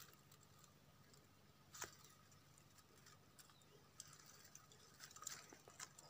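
Near silence, with a few faint clicks and crackles of dry twigs and leaves from an old bird's nest being handled: one about two seconds in and a few more near the end.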